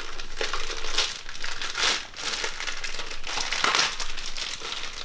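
Clear plastic parts bag crinkling and rustling as it is handled and pulled at, in irregular bursts, loudest about two seconds in and again near four seconds.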